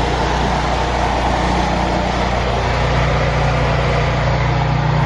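Generator engine running steadily, a constant low hum with a hiss over it, powering the house through a power outage.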